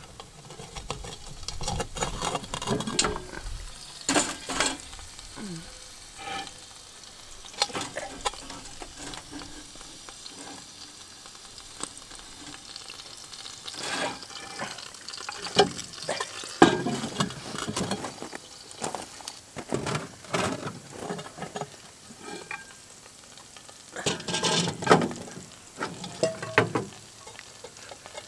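Irregular clinks, scrapes and knocks of a cast-iron camp Dutch oven and its coal-covered lid being handled. The sounds come in clusters, with short quieter gaps between them.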